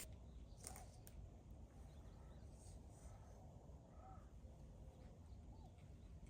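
Faint crow caws, a few short calls spaced a second or more apart, over otherwise near-quiet outdoor ambience.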